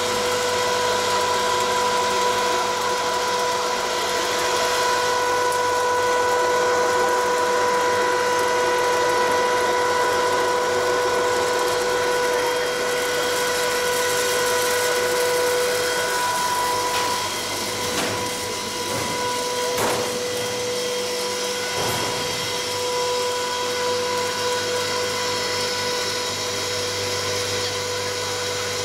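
Double-head vertical hot-air popcorn machine running: a steady mechanical whir with an even, high hum. A few short clicks come past the middle.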